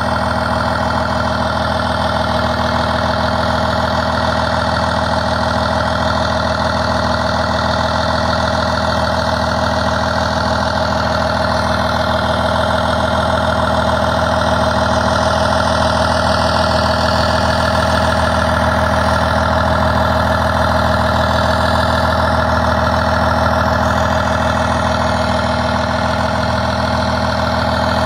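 Truck engine idling steadily, one even, unchanging drone with no revving.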